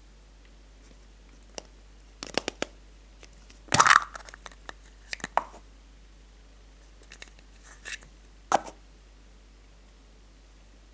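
Hollow plastic surprise-egg capsule handled and opened by hand: scattered plastic clicks, with a burst of crackling about four seconds in, then lighter clicks and rustles as the small plastic toy figure is taken out and turned in the fingers.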